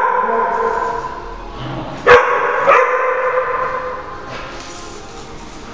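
Dogs barking while playing: a bark right at the start, then a loud sharp bark about two seconds in and a second one just after. Each bark rings on briefly in a bare, hard-walled room, and it goes quieter near the end.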